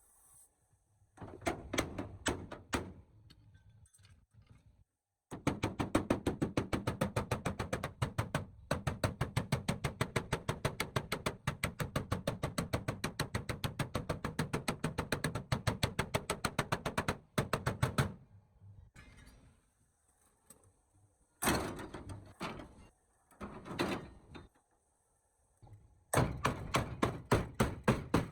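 Rapid, evenly spaced hammer-like knocks on the truck's parts, several strokes a second, coming in long runs broken by short pauses.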